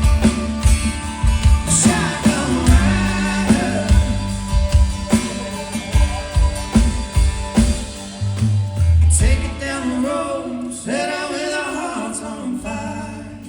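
Live rock band with guitar, bass and drums, and singing over it, as the song draws to a close. The level drops off near the end.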